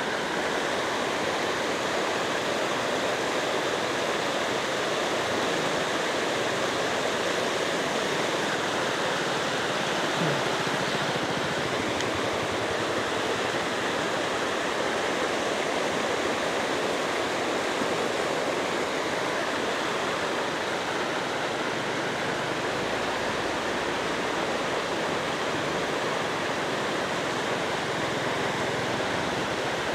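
Floodwater rushing, a steady even noise that holds unchanged throughout.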